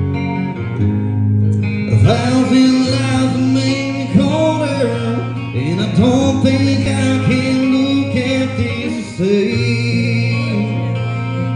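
Male country singer singing into a microphone over a guitar accompaniment; his voice comes in about two seconds in.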